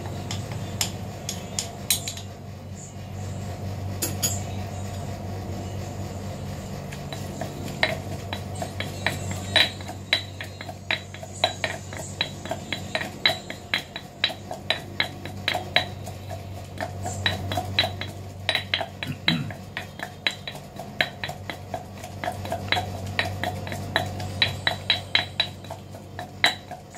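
Metal spoon clinking and scraping against a granite mortar and pestle, then, from about eight seconds in, the granite pestle pounding in the granite mortar: a steady run of sharp stone knocks, about two to three a second, each with a short ring, over a low steady hum.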